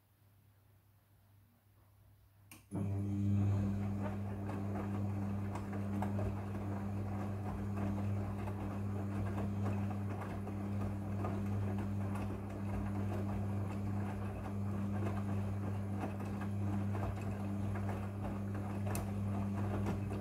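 Front-loading washing machine's drum motor in the wash cycle: a click about two and a half seconds in, then the motor runs with a steady hum while the load tumbles, and it stops abruptly at the end.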